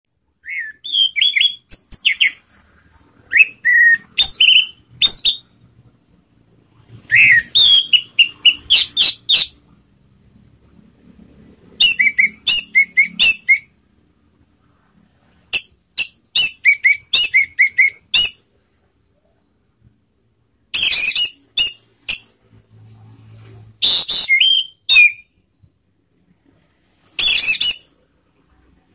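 Orange-headed thrush singing in about eight short bursts of rapid, high-pitched notes and whistles, with pauses of one to three seconds between them.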